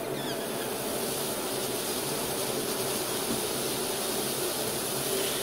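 Red-hot steel kitchen knife pressed into a frozen-solid tomato, sizzling with a steady hiss as the glowing blade meets the ice, over a steady low hum.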